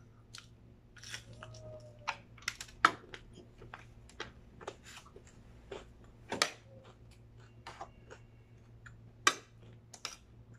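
Metal spoon and fork clinking and scraping against a ceramic plate during a meal, irregular sharp taps with three louder clinks, over a low steady hum.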